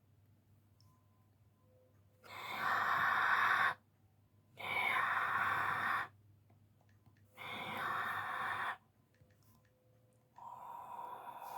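Emergency Alert System SAME header: three short buzzing data bursts, each about a second and a half long, evenly spaced. Near the end a steady alert attention tone starts.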